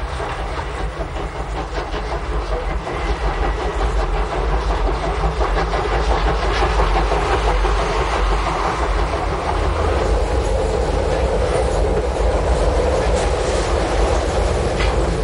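Steam-hauled train running along the track, wheels clicking over the rail joints with a steady low rumble that grows a little louder.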